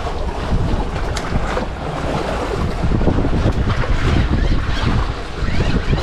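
Wind buffeting the microphone on an open boat at sea, a steady low noise with the wash of choppy waves beneath it.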